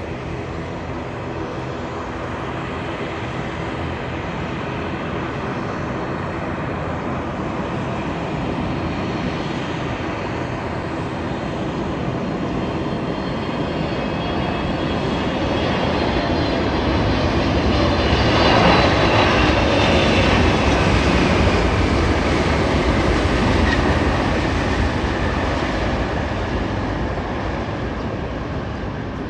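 Jet airliner on landing approach passing overhead: its engine noise grows to a peak about two-thirds of the way through, with a whine that falls in pitch as it passes, then fades.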